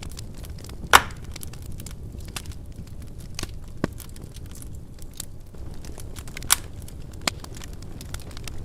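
Wood fire burning in a fireplace: a steady low rumble of flames under scattered crackles and sharp pops of the burning wood, the loudest pop about a second in.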